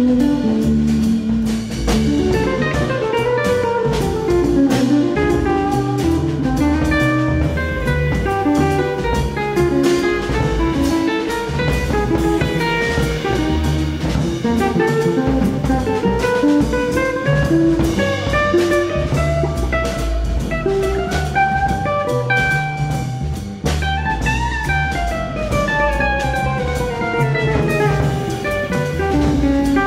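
Background music with a steady drum beat under a moving melody line.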